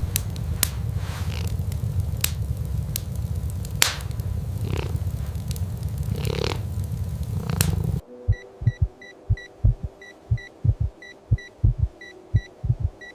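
A steady low rumble with scattered sharp crackles. About eight seconds in it cuts abruptly to a heartbeat-like thumping, with a medical monitor beeping at a steady pace about twice a second.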